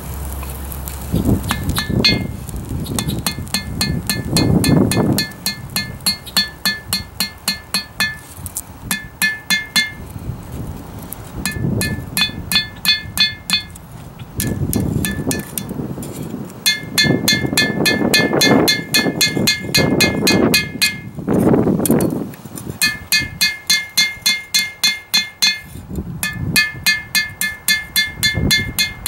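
Hand hammer blows on a hot steel knife blank lying on an anvil, in quick runs of about three to four strikes a second broken by short pauses. Each blow rings the anvil with a high, bell-like tone.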